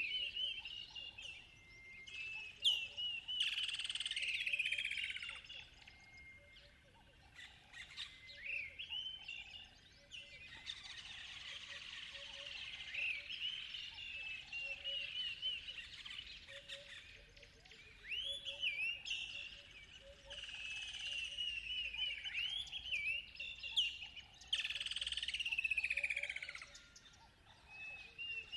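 Songbirds singing and chirping in waterside trees, several overlapping phrases of quick high chirps and warbles that come in runs. Under them, a faint low note is repeated at an even pace.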